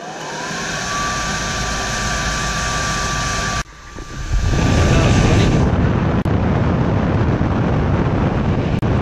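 Squirrel-cage blower fan spinning up with a rising whine that settles into a steady high tone over an even rush of air. About three and a half seconds in, the sound breaks off abruptly and returns as a louder, deeper rush of air pouring through the duct opening.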